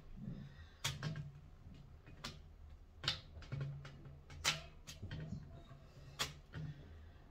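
Irregular sharp taps and knocks of hands and utensils on a kitchen work surface while pelmeni dough is being cut and shaped, roughly one a second, over a low steady hum.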